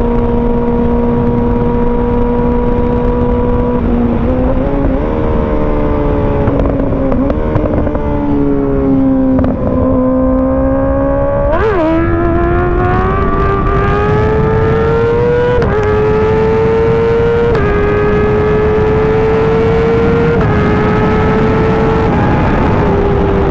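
Kawasaki ZX-6R inline-four sportbike engine running under way, its pitch holding steady and then shifting in small steps. About twelve seconds in there is a quick rev blip, after which the engine runs at a higher pitch.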